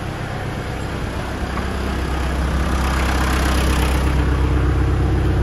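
Tractor diesel engine idling steadily, growing louder over the first couple of seconds.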